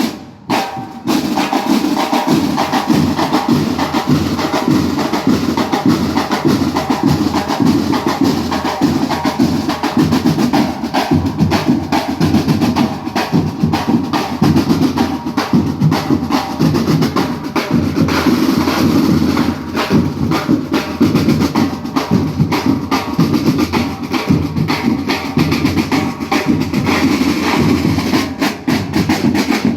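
Percussion-heavy music: fast, dense drumming with sharp wood-block-like knocks throughout.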